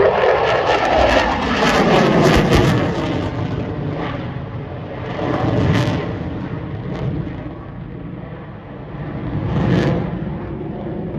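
Fighter jet flying past overhead. Its engine noise is loudest in the first few seconds, with a falling pitch, then fades, swelling twice more as it moves away.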